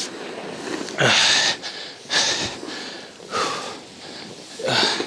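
A person breathing hard from exertion, with loud huffs and gasps about once a second; the loudest comes about a second in.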